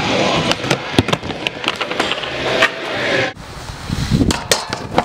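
Skateboard wheels rolling on a wooden ramp, with sharp clacks and knocks of the board. About three seconds in, this cuts off suddenly and gives way to quieter scraping and scattered clicks from a snowboard on snow and a rail.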